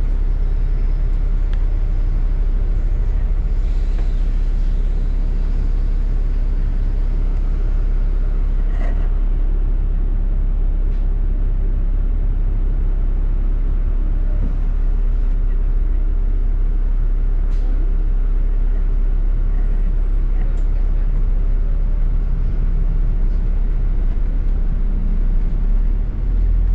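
Double-decker bus interior while moving: a steady low engine and road rumble, with a few faint knocks and rattles.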